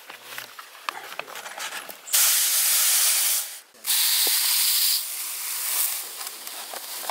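Granulated sugar pouring through a paper funnel into a glass bottle, a loud steady hiss that starts about two seconds in, breaks off briefly, then runs on for another second or so before fading. Light small clicks and rustles come before it.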